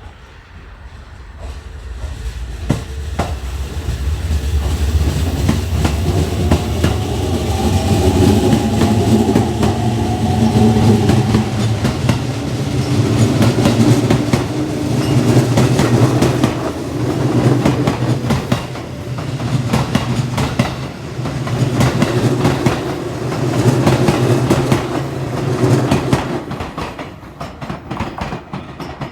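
Electric commuter train running along the platform track, growing louder over the first few seconds. Its wheels clack over the rail joints in regular swells as the cars go by, then ease off near the end.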